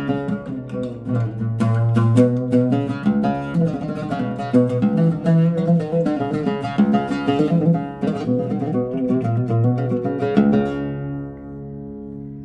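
Arabic oud made by Sabsaby, played with a plectrum in an improvised taqasim to try out its sound: a quick run of picked notes. Near the end a last note is left ringing and dies away.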